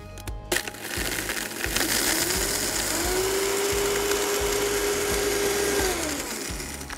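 High-powered countertop blender grinding whole spices (long pepper, coriander seeds, mustard seeds, peppercorns) into a coarse rub. The motor starts about half a second in and rises to a steady pitch over the next two seconds. It runs steadily with the seeds grinding against the jar, then winds down near the end.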